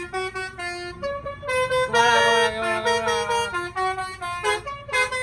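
Basuri telolet horn playing a melody: a run of short notes stepping up and down in pitch, with a longer chord of several tones about two seconds in.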